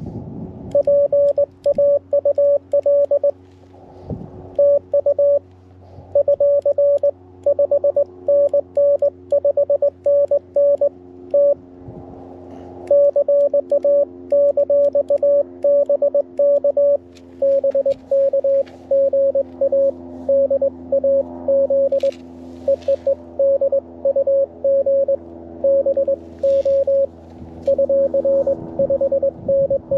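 Morse code (CW) keyed as short and long tones of about 600 Hz from a QRP ham radio transceiver on 17 metres, over a steady low hum. The note shifts slightly lower about seventeen seconds in.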